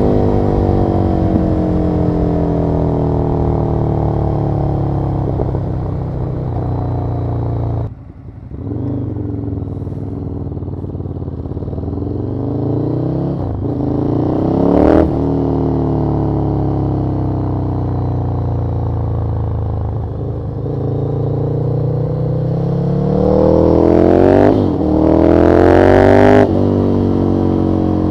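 Ducati Monster 1100 Evo's air-cooled L-twin engine, exhaling through a Termignoni silencer while the bike is ridden. The engine note falls away off the throttle, dips briefly about eight seconds in, then climbs under acceleration. It breaks sharply at gear changes, once about halfway and twice in quick succession near the end.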